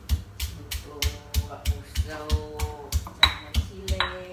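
Pestle pounding ingredients in a mortar, a steady beat of sharp knocks with a dull thud, about three strokes a second.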